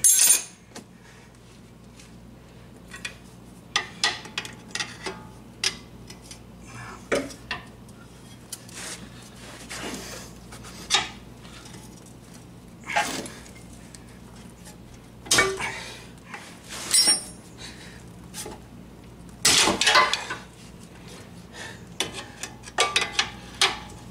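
Metal hand tools clinking and knocking against the steel front suspension parts of a car in scattered, irregular strikes, some ringing briefly, as the lower control arm is worked loose.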